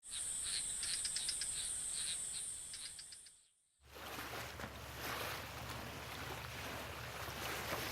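Outdoor tropical ambience: a steady high-pitched insect drone with scattered bird chirps. It fades out about three and a half seconds in and gives way to a steady rushing noise over a low hum.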